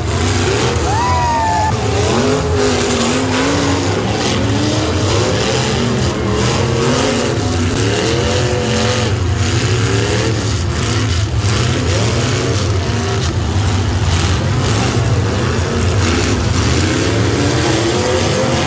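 Demolition derby cars' engines revving up and down, several at a time, over a continuous low rumble.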